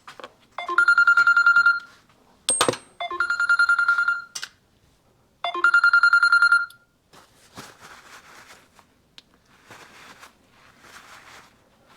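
Three bursts of rapid, bell-like metallic ringing, each about a second long and about two and a half seconds apart, with a sharp click between the first two; after that only faint handling and rustling.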